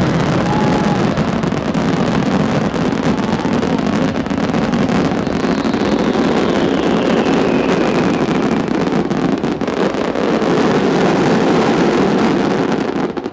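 Grand-finale barrage of aerial firework shells: rapid overlapping bursts and crackle merge into one continuous heavy rumble, with a high falling whistle partway through. The barrage cuts off suddenly at the very end.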